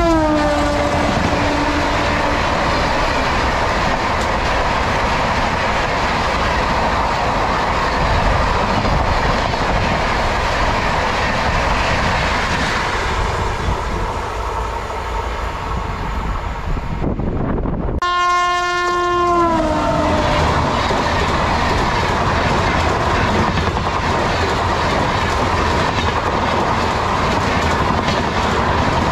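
Indian Railways electric locomotive horn blaring as an express passes at speed, its pitch dropping as it goes by, then the steady rumble and clickety-clack of LHB coaches rushing past. After a brief cut, another passing train's horn drops in pitch the same way, and more coaches roll by.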